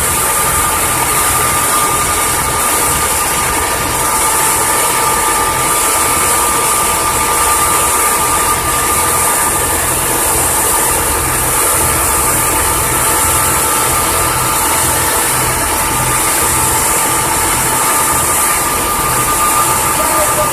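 River ferry's engine running steadily, a low even throb with a steady whine, over a constant hiss of wind and water rushing past the boat.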